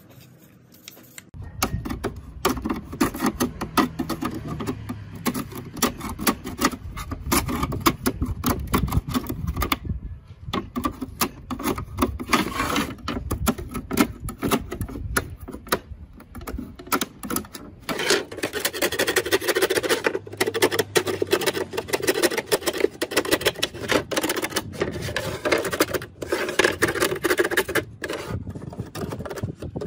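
Dense, irregular clicking and scraping from hand work on small hard parts, starting about a second and a half in and breaking off briefly about ten seconds in.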